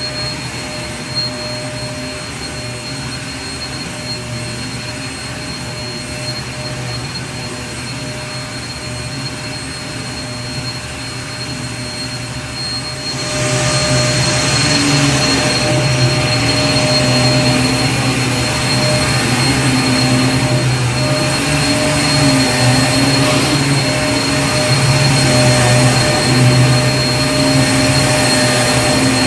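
Vacuum cleaner running continuously with a steady whine over its airflow noise. About 13 seconds in it gets louder and harsher and stays that way.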